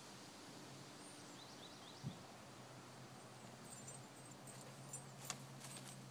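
Faint garden ambience: a few short bird chirps over a faint steady low hum, with a soft thump about two seconds in and a couple of sharp clicks a little after five seconds. No clear scratching of the dog's digging stands out.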